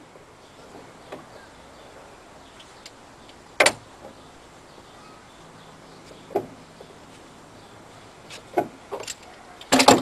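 Scattered knocks and clanks of a pipe wrench on the steel shafts of a two-cylinder rotary steam engine prototype as its rotors are turned by hand. One sharp knock comes about a third of the way in and a softer one past halfway. A quick cluster near the end holds the loudest of all.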